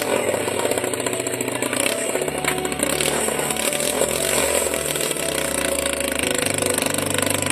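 Small generator engine running loud and steady as it drives the rotor of a homemade helicopter, its note shifting about two seconds in and again near six seconds.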